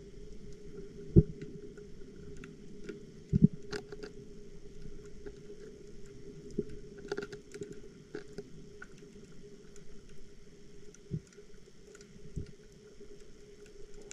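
Underwater sound picked up by a submerged GoPro in its housing: a steady low hum with scattered faint clicks and ticks. Four dull knocks sound against it, the two loudest in the first few seconds.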